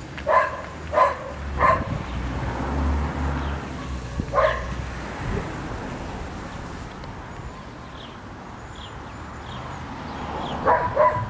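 A dog barking in short barks: three in the first two seconds, one more a few seconds later and a quick double bark near the end. In the second half, a miniature horse's hooves clop faintly and evenly as it trots on pavement.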